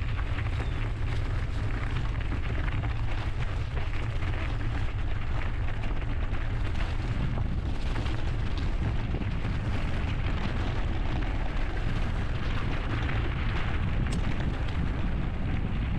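Wind buffeting the helmet or bike-mounted camera's microphone while riding a mountain bike: a steady low rumble, over a dense crackle of the tyres rolling on the trail.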